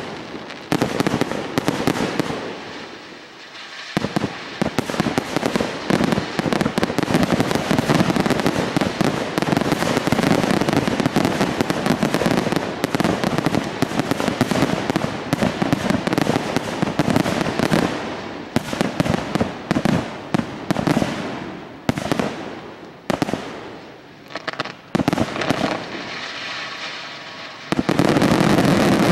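Aerial fireworks from a fogueteiro rig hung beneath a paper hot-air balloon, bursting and crackling in dense, rapid volleys. The barrage thins out briefly a few seconds in and again for a few seconds near the end, then comes back loud.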